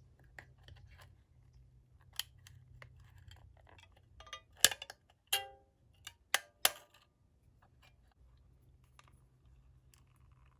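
Small metal tool clicking and tapping against the plastic battery compartment and metal spring contacts of a vintage Sharp EL-122 calculator, a few scattered clicks with one short ringing metallic clink halfway through.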